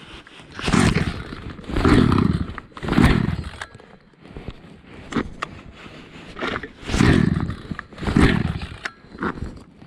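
Horamec chainsaw with a modified exhaust, its engine giving five short, rough bursts: three about a second apart, then two more after a pause.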